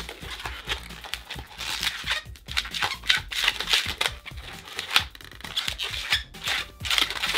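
A latex 160 twisting balloon squeaking and rubbing against itself as small bubbles are twisted into it, in an irregular run of quick squeaks and scrapes.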